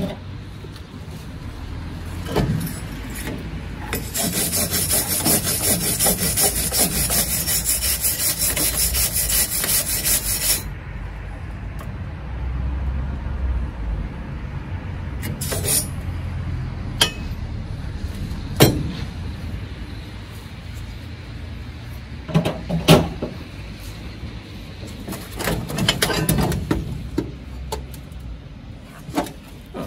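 Hand wire brush scrubbing a rusty steel square tube for about six seconds, followed by a few sharp metal knocks as the tube is handled.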